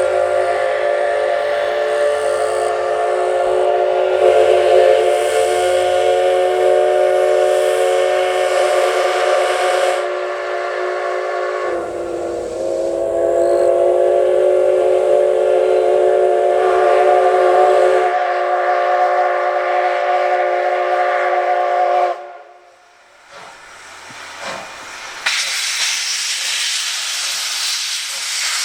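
Steam locomotive C57 180's whistle blowing long, steady blasts, several in a row, stopping about three-quarters of the way in. After a short lull comes a loud hiss of steam venting from the cylinder drain cocks as the locomotive starts away.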